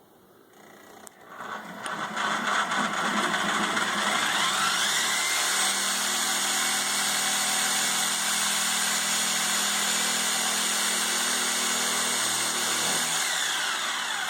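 An electric motor spinning up with a rising whine, running steadily for about ten seconds, then winding down.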